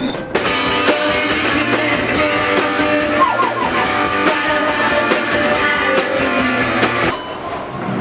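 Live rock band playing on stage: electric guitar, bass guitar and drums with a steady beat. It cuts in just after the start and breaks off abruptly about seven seconds in.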